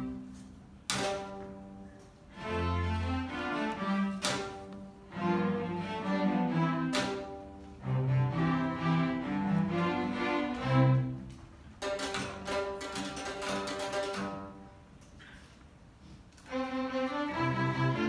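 Student string orchestra (violins, cellos and double bass) playing, with sharp accented strokes about a second in and again around four and seven seconds. A run of quick sharp strokes follows around twelve seconds, then a quiet stretch before the full section comes back in near the end.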